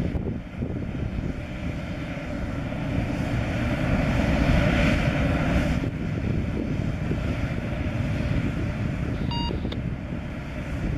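Canadian Pacific diesel locomotive approaching with its engine running, together with the low rumble of the train of autorack cars on the rails; the sound swells in the middle. A brief high ring about nine seconds in.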